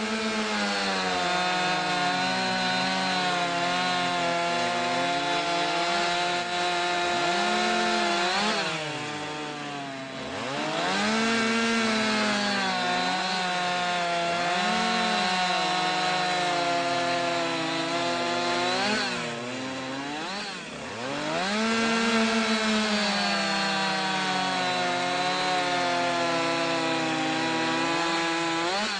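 Gasoline chainsaw cutting through a 12-inch block of solid pine, three cuts in a row. The engine holds a steady pitch under load through each cut, with brief drops and swings in pitch between cuts about a third and two-thirds of the way through.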